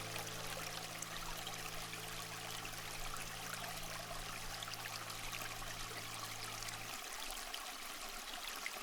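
Steady sound of running, trickling water, like a stream, under a low sustained drone that stops about seven seconds in.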